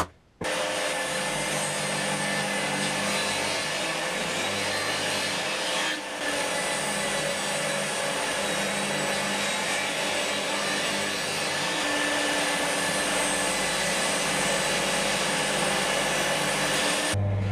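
Homemade geared disc sander running, with wood being ground against the spinning sanding disc: a steady rasping under the motor's hum, broken by short cuts near the start and about six seconds in.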